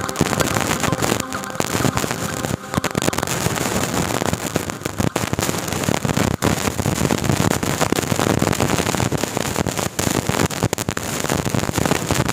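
A steady, crackling rush of outdoor noise with many small pops.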